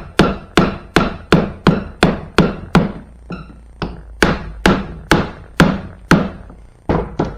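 Steady, sharp mallet blows, about three a second, driving a replacement hinge onto the rail of a 1990s BMW pannier; they pause briefly about three seconds in, then resume and end with two quick taps.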